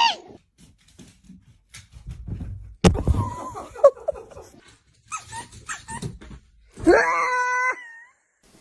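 A dog whining and yipping, ending in a held whine of about a second near the end. A thump about three seconds in.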